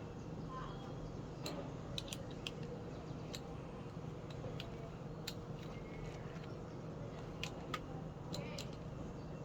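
Irregular small clicks and taps of a small screwdriver working plastic clips loose on a washing machine's water inlet valve, over a steady low hum.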